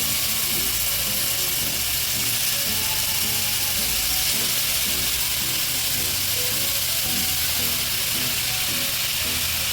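Slices of pork belly sizzling steadily on a grill, with light background music.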